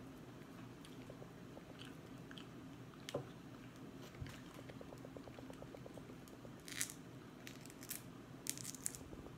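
Crab-leg shells being snapped and peeled apart by hand, with small wet mouth sounds of chewing the crab meat; sharper crackles of shell come about seven seconds in and again near the end.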